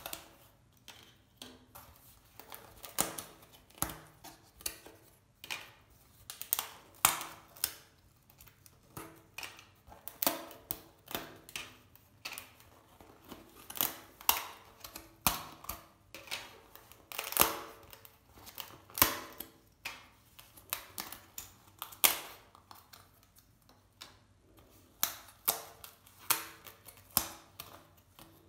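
Pre-cut foam-paper puzzle pieces being pressed and popped out of their sheet by hand, making an irregular run of sharp snaps and crackles.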